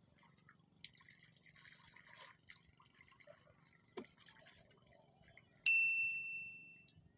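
A single bright metallic ding about two-thirds of the way in, ringing out clearly and fading over about a second. Before it come faint small clicks and drips.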